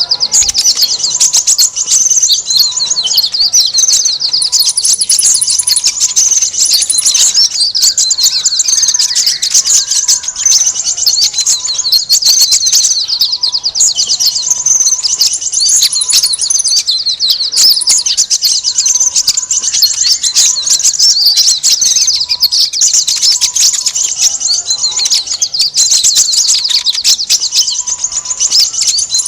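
Dense, loud chorus of many small birds chirping and chattering rapidly and without pause: a bird-lure recording of a noisy small-bird flock.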